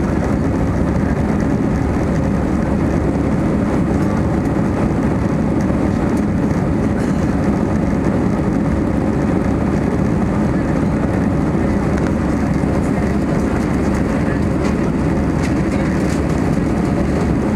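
Steady cabin noise inside an Airbus A320-200 climbing after takeoff: engines and rushing air blend into one constant low-pitched rush that holds the same level throughout.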